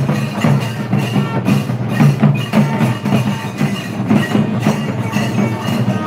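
Temple procession drumming: fast, steady, loud strokes on hand-carried drums, with a melody holding steady notes over the beat.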